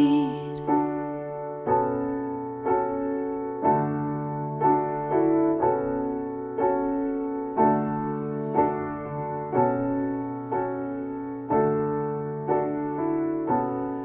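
Piano instrumental break in a slow, tender ballad: chords struck about once a second, sometimes twice, each ringing and fading, with no singing.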